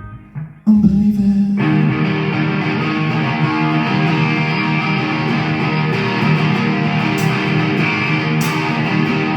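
Live rock band playing an instrumental passage with electric guitar and bass. After a brief drop at the start, the band comes back in loudly under a second in and plays on steadily, with a few cymbal hits in the second half.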